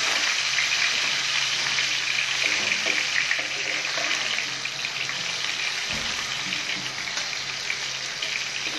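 Pieces of marinated broiler chicken sizzling and crackling steadily as they fry in hot oil in a pan, browned and nearly done. There is one low knock about six seconds in.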